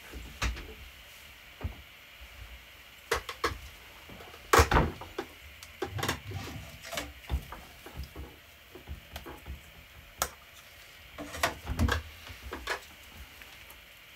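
Handling clatter of a flexible steel print sheet being lifted off the 3D printer's magnetic heatbed and later set back down, with the printed part taken off it: irregular clicks and knocks, the loudest about four and a half seconds in and again near the end.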